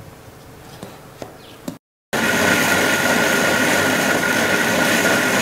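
Electric mixer grinder running, blending mango with milk, sugar and saffron in its stainless steel jar. After a quiet start, the motor's steady whine starts abruptly about two seconds in.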